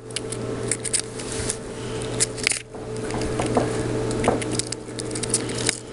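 Rustling and scattered clicking handling sounds over a steady low hum.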